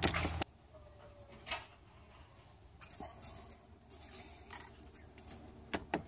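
Light handling noise in an engine bay: scattered small clicks and rustles of plastic trim and a braided cable being worked by hand, with a quick run of sharper clicks near the end. A brief hum cuts off half a second in.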